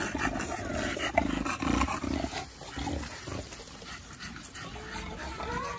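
A dog panting: quick, rhythmic breaths in the first couple of seconds, then fainter.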